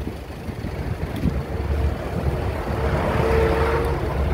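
Steady low rumble of a vehicle on the road, with wind noise on the phone's microphone.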